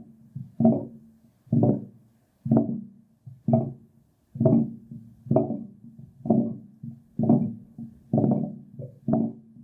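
Old building water pipe knocking in a steady rhythm as water is pumped through it: about one resonant knock a second, each ringing briefly over a low steady hum.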